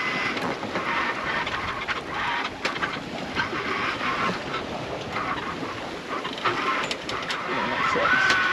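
Wind and water rushing past a sailboat under way, with scattered clicks and knocks from the deck gear and a brief squeak near the end.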